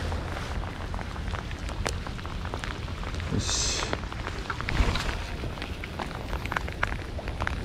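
Rain falling, with many close raindrop ticks over a low wind rumble. There is a brief hiss about three and a half seconds in.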